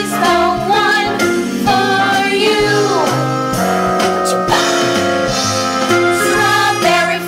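A pop-style song sung by female voices over an instrumental backing track.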